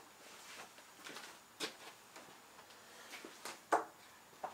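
A few scattered light clicks and knocks, like small tools being handled, the loudest a pair about three and a half seconds in; the lathe is not running.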